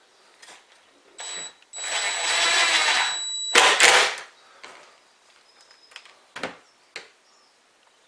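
Cordless DeWalt drill/driver driving a screw through a door hinge into a repaired screw hole: a short spin, then a run of about two seconds with a steady high motor whine, ending in a brief louder burst. A few light clicks follow.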